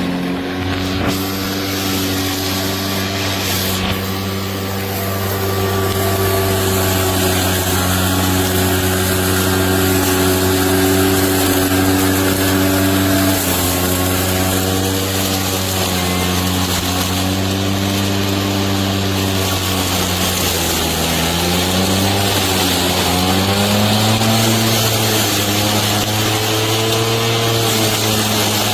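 Lawn mower running steadily with an even hum; its pitch steps down a little midway, sags and wavers about two-thirds of the way through, then climbs back and holds.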